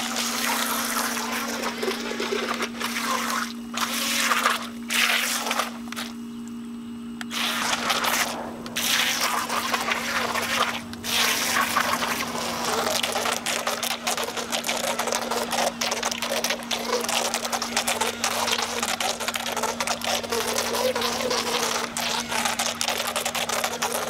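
Syma toy remote-control jet ski's water-jet drive spraying and splashing as it runs around a small pool: in on-off spurts for the first ten seconds or so as the throttle is worked, then almost continuously.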